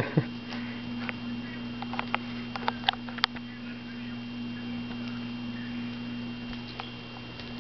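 Steady electrical hum with a cat scuffling as it grapples and kicks a small stuffed toy on carpet: a thump just at the start, then scattered light clicks and ticks, bunched between two and three seconds in.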